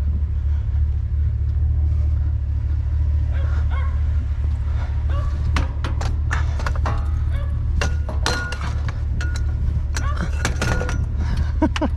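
Scrap metal and other junk clanking and clinking as it is shifted and loaded, with a flurry of sharp knocks, some briefly ringing, in the second half, over a steady low vehicle rumble.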